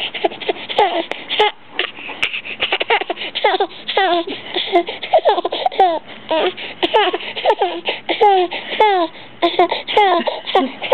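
An overtired six-month-old baby laughing and squealing: a long run of short, high notes, each falling in pitch, about two a second.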